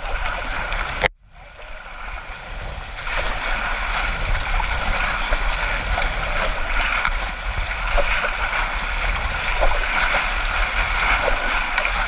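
Rushing whitewater of a river rapid heard from a paddled raft, with paddle strokes splashing in the water. About a second in the sound cuts out suddenly, then fades back up over the next two seconds.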